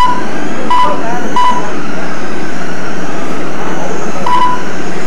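Four short, identical electronic beeps from an RC race lap-timing system, three close together near the start and one near the end, over a loud steady background noise.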